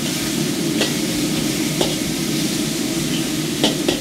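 Pieces of deer heart sizzling in oil in a hot wok, stirred with a metal spatula that clinks and scrapes against the wok about four times.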